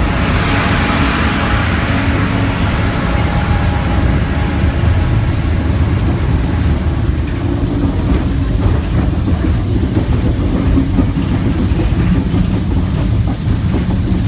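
Mount Washington Cog Railway train running on its rack track: a steady low rumble of the locomotive with rattling from the cog wheels and rack. A rush of noise fills the first two seconds, and light clicking comes through in the second half as the train crosses the switches.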